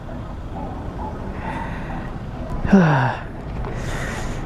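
A person's breathy sigh, falling in pitch, about three seconds in, over a steady low rumble.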